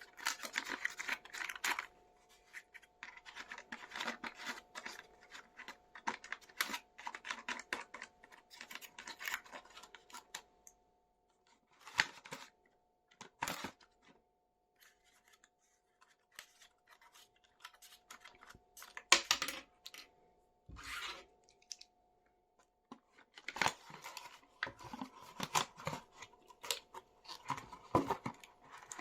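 Hands unpacking a toy: bursts of scratching, rustling and tearing of packaging, with sharp clicks and short pauses between.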